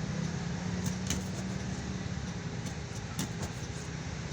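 A steady low mechanical hum that eases about halfway through, with a few faint clicks and knocks.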